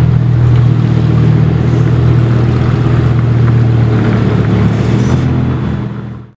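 Lamborghini Huracán's V10 engine running steadily at low revs with a deep, even rumble as the car creeps out at walking pace, fading away near the end.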